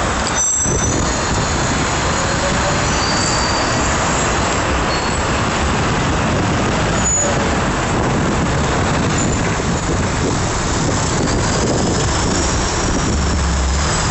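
Steady traffic noise mixed with wind rush on a bike-mounted camera, heard while riding slowly among cars and trucks in heavy city traffic. A faint thin whine rises and falls near the end.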